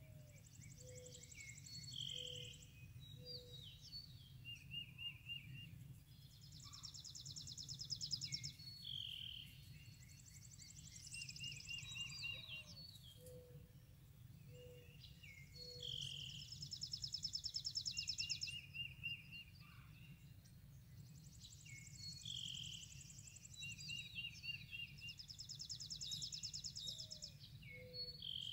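Several songbirds singing. One dry, rapid high trill about a second and a half long repeats every few seconds, among shorter whistled phrases and a series of short low notes, over a steady low rumble.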